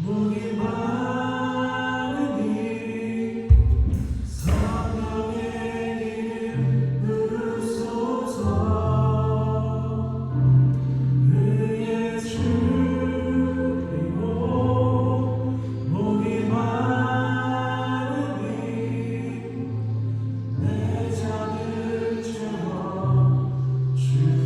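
Praise band playing a worship song: several voices singing together over keyboards, drums and acoustic guitar, with sustained bass notes. A loud crash with a deep bass hit comes about three and a half seconds in.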